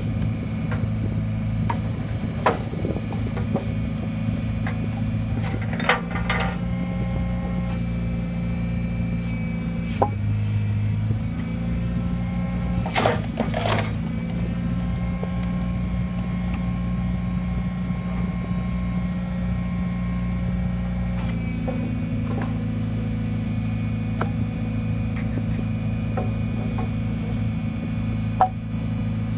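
Engine running the hydraulic pump of a truck-mounted log splitter. For a long stretch in the middle the engine note drops and a whine rises over it as the ram pushes through a log under load. Sharp cracks and knocks of the wood splitting and logs being handled come several times, the loudest about halfway through.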